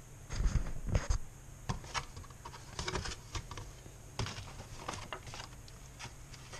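Cardboard tool box, paper instruction sheet and foam insert being handled: irregular taps, clicks and rustles, loudest in a cluster about half a second to a second in, then scattered.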